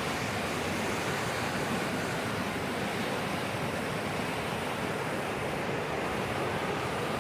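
Steady rushing of rough, fast-flowing mountain river water.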